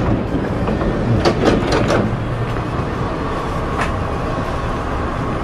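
Steady hum of a Hankyu 6300-series train standing at the platform with its doors open, with a few knocks and footsteps about a second in as someone steps aboard.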